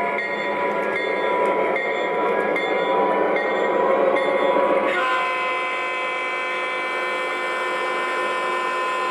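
O gauge model diesel locomotive moving slowly while shoving hopper cars along three-rail track. Its onboard speaker plays diesel engine sound, mixed with the rumble of wheels on the rails. About five seconds in, the sound changes to a slightly quieter, steadier hum.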